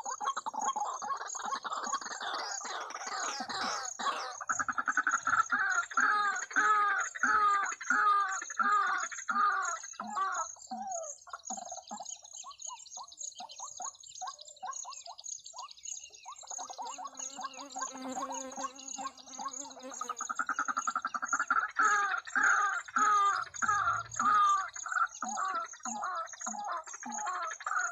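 Waterhen calls played as a lure from a small portable Bluetooth speaker, a harsh call repeated about twice a second in two long bouts with a quieter gap in the middle. A steady high-pitched pulsing buzz runs underneath.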